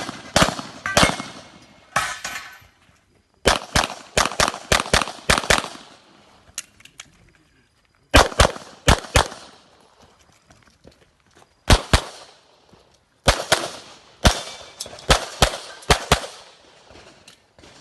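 Semi-automatic pistol fired rapidly during a practical-shooting (IPSC) stage. The shots come in quick strings of two to eight, about three or four a second, with pauses of one to three seconds between strings.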